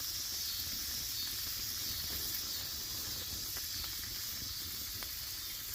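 Bacon sizzling steadily in a small skillet over a campfire that is too hot for it, with a couple of faint grease pops.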